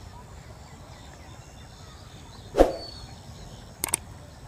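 Sound effects of a subscribe-button animation over faint background hiss: a short sudden pop with a falling pitch about halfway through, then a quick double mouse click near the end.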